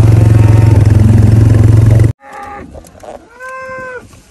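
A small engine running steadily and loudly close to the microphone, cutting off abruptly about two seconds in. Then a cow moos once near the end.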